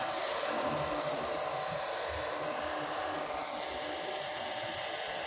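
Cummins 250 kVA diesel generator set running steadily: an even, airy mechanical drone with faint steady tones, easing slightly a little past halfway.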